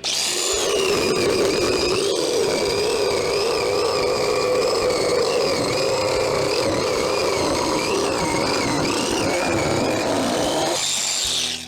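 Electric jigsaw cutting a curve through wood. The motor starts abruptly and runs with a whine that wavers as the blade takes the load, then winds down near the end.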